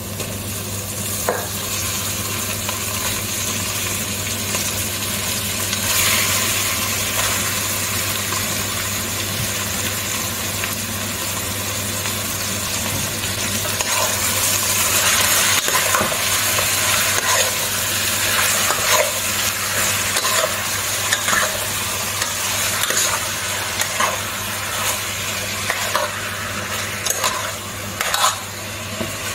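Raw chicken pieces frying with a steady sizzle in hot oil in a pot, with frequent clacks and scrapes of a spoon and spatula stirring them against the pot.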